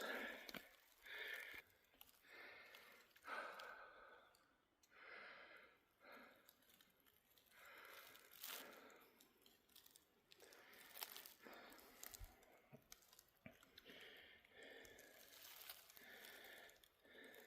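A hiker breathing hard after a steep uphill climb, faint, about one breath every second or so.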